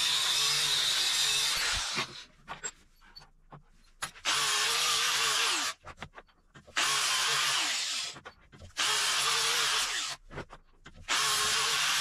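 Angle grinder working steel square stock held in a vise. One long run stops about two seconds in, then four shorter passes of a second or two each follow, with small clinks of metal being handled in the gaps.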